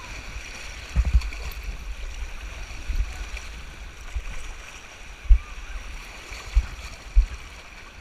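Water sloshing and lapping around an inner tube in a waterpark splash pool, with several short low thumps, the loudest about five seconds in.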